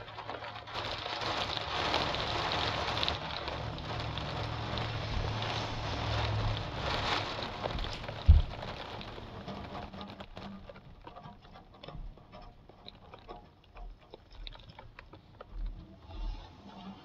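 Rain pattering, heavier through the first eight or nine seconds and then easing to scattered drips and ticks. A single loud thump about eight seconds in.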